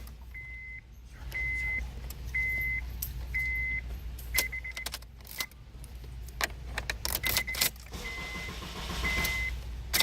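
Car's warning chime beeping about once a second while the ignition key jangles and clicks in the lock as it is turned.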